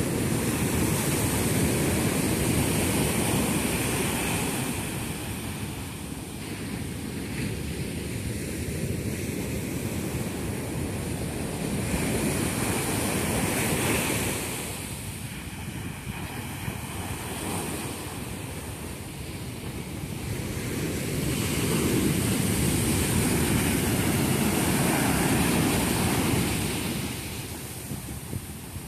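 Ocean surf breaking and washing up a sandy beach. The rush of water swells louder and fades again three times.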